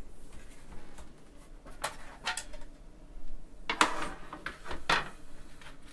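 Scattered light clicks and taps of small hard parts being handled, from picking through an iFixit screwdriver kit and screws.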